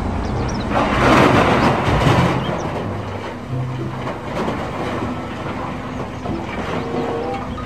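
Large wheel loader's diesel engine running while it tips a heaped bucketload of dark earth into a dump truck's bed; the load pours in with a heavy rushing noise, loudest about a second in.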